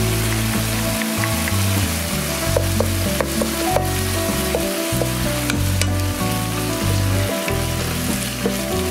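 Broad beans, chicken tenderloin and corn sizzling in oil in a frying pan with grated garlic just added, stirred with a wooden spatula that clicks and scrapes against the pan several times in the middle.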